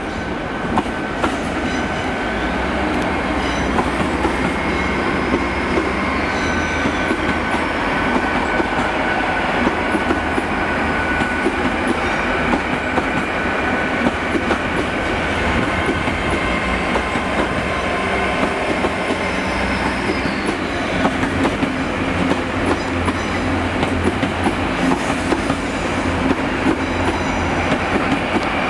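Great Western Railway Hitachi Intercity Express Train running past close by. It makes a steady rumble, its wheels click over rail joints, and a thin high whine runs over the top.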